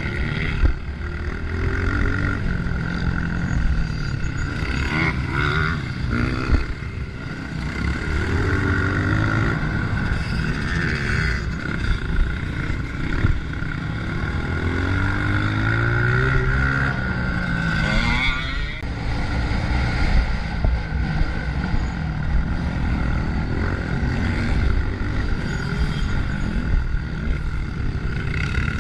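Honda CRF125F single-cylinder four-stroke dirt bike engine being ridden hard off-road, its pitch rising and falling over and over as the throttle is opened and closed. The engine runs over a constant rough noise of wind and track.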